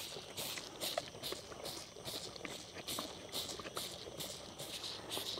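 Bottle calf sucking milk replacer from a large feeding bottle, a steady rhythm of slurping sucks about two to three times a second.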